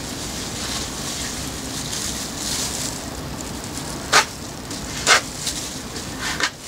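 Plastic spreader scraping and smearing fairing compound along the edge of a fiberglass panel, a steady crackly scraping with two sharp clicks about four and five seconds in.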